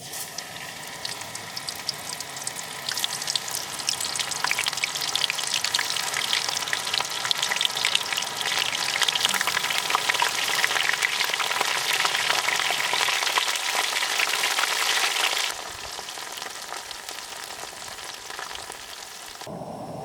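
Food frying in hot fat: a dense, steady crackle and sizzle. It drops suddenly to a quieter sizzle about two-thirds of the way through.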